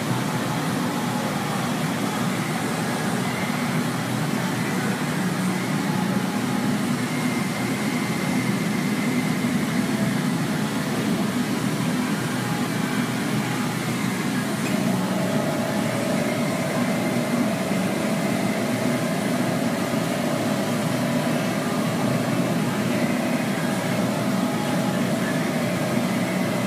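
Steady machine rumble with a hiss, heard from inside a stainless steel pipe; a steady hum joins about halfway through.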